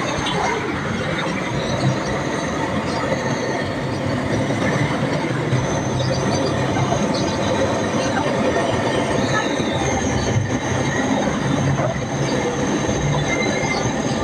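Hose-fed gas soldering torch burning with a steady rushing hiss as it heats the cracked seam of an old radiator's lower tank to melt solder into it.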